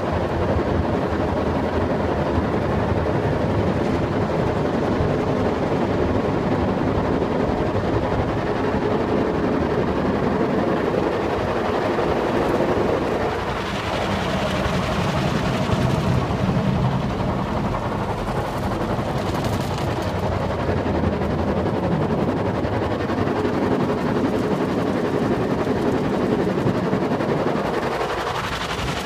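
Automatic car wash heard from inside the car cabin: water spraying over the glass and body with a steady rushing noise and machinery hum. About halfway the sound changes as the rotating brushes come over the car and scrub the roof and windshield with a rapid beating.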